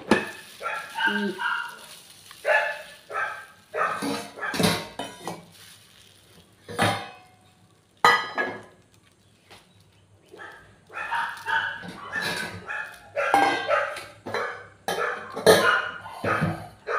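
Dogs barking and yipping in repeated short bursts, in anticipation of being fed, with a few sharp metallic clanks of stainless steel dog bowls being set down on a counter.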